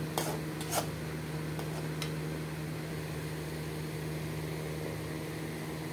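Steady low mechanical hum, with two sharp metallic knocks in the first second, a slotted spoon striking the metal curry pan, and a couple of fainter clicks a little later.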